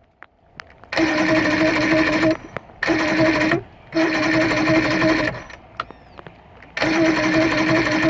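Electric starter cranking a Johnson V4 outboard motor in four bursts of one to two seconds each, a steady whine, with the engine turning over but not firing.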